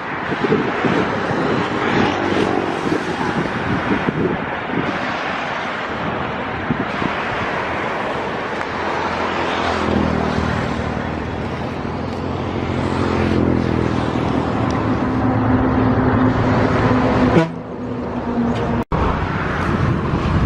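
Wind buffeting the microphone over an outdoor rush of noise, with a motor engine running steadily from about halfway through until shortly before the end.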